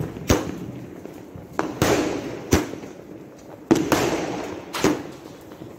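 Aerial fireworks bursting: about six sharp bangs at uneven intervals, each trailing off in an echo.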